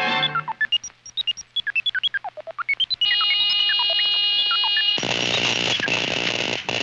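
Cartoon sound effects of an electronic control panel being worked: a fast run of short bleeps that slide up and down in pitch, then steady tones with more bleeps over them. From about five seconds in, a loud hissing, crackling buzz takes over.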